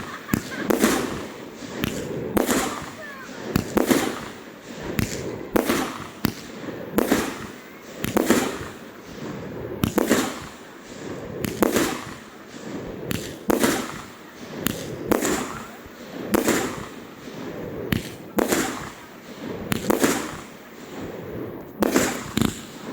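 Fireworks display: shells bursting in a rapid, continuous string of bangs, about one to two a second.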